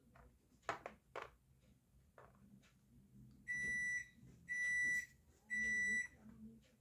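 Three electronic beeps, one a second, each about half a second long at one high pitch. Before them come two sharp clicks of a chess piece being set down on the board.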